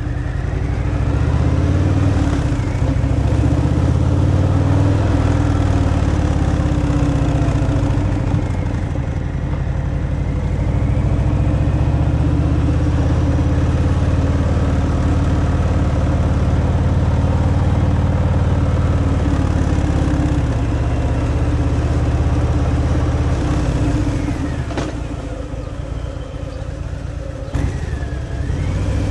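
Harley-Davidson Fat Boy's V-twin engine running through its stock exhaust while riding, its pitch rising and falling as it pulls and changes speed. It eases off for a few seconds near the end, then picks up again.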